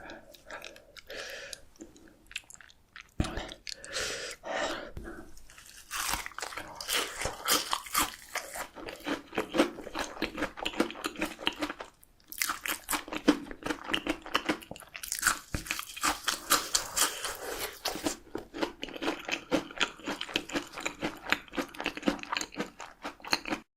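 A person chewing and biting crisp food close to the microphone, with loud rapid crunching. The chewing is sparse at first, then turns to almost continuous crunching about six seconds in, with a brief pause around halfway.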